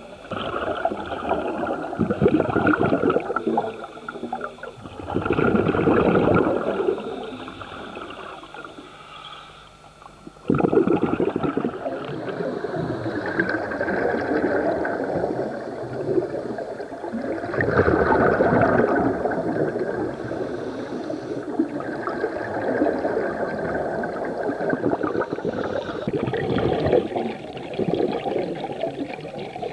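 Underwater sound of a scuba diver breathing through a regulator: gurgling surges of exhaled bubbles every few seconds. A quieter stretch comes about eight seconds in, and the bubbling returns suddenly at about ten and a half seconds.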